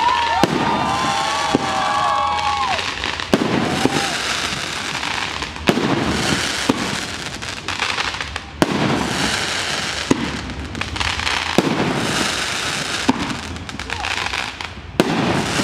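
Fireworks display: shells bursting in the air with sharp bangs every second or two, and crackling between them.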